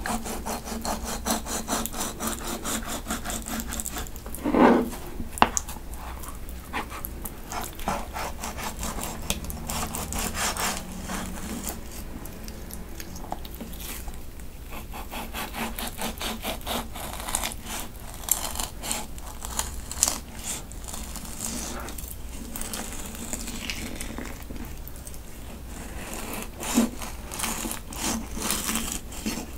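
Kitchen knife sawing back and forth through a raw salmon fillet on a plastic cutting board, a long run of quick rasping strokes, with one brief louder bump about four and a half seconds in.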